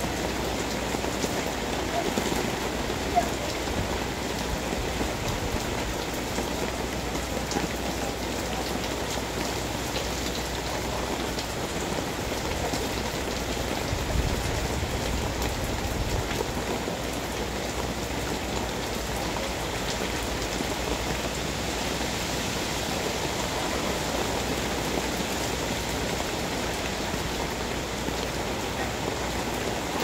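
Steady rain falling on a wet concrete path and leafy plants, with a brief louder tap a few seconds in.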